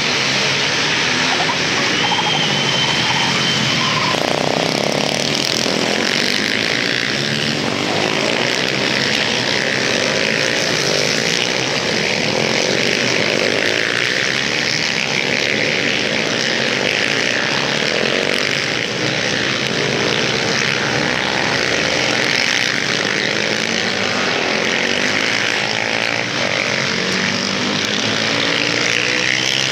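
A pack of supermoto motorcycles racing. Their engines are revving up and down together, many overlapping, as the riders accelerate, shift and brake through the corners.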